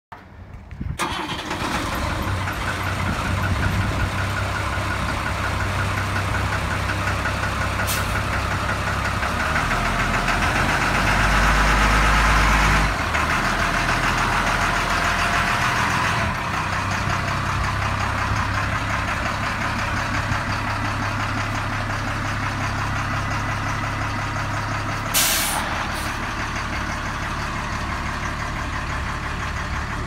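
Caterpillar 3116 inline-six diesel in a school bus starting from cold about a second in, then running at a steady idle. It runs louder for a few seconds around the middle and drops back suddenly. Near the end, a short, loud hiss of air from the air brake system.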